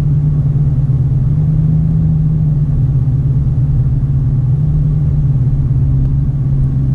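Supercharged V8 of a 2017 Dodge Challenger Hellcat running steadily at cruise, a constant low drone with road rumble underneath; the pitch drops slightly near the end.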